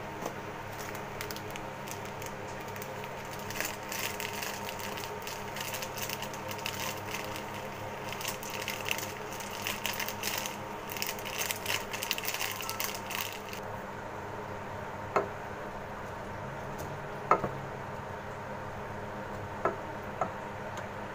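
Foil spice-mix packet crinkling and rustling for about ten seconds as masala is shaken out into the pot. After it stops come a few sharp knocks of a wooden spatula against the aluminium pot, over a steady background hum.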